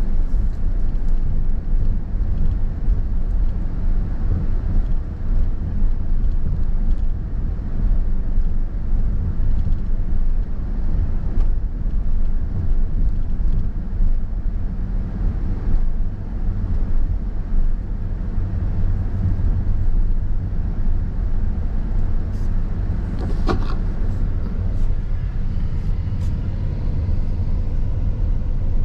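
Steady low rumble of road and engine noise from a car being driven, with a few short clicks about three-quarters of the way through.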